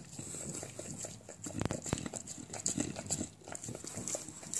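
English bulldog licking at a wall: irregular wet smacks and clicks of the tongue and jowls, with one louder knock a little under two seconds in.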